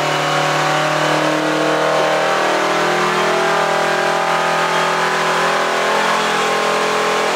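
Kenworth semi truck's diesel engine running steadily at high revs, its pitch held nearly constant.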